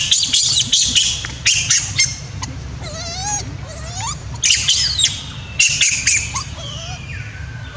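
Young long-tailed macaque crying: repeated loud, high-pitched screams in two bouts, one near the start and one around five seconds in, with softer wavering squeals between them.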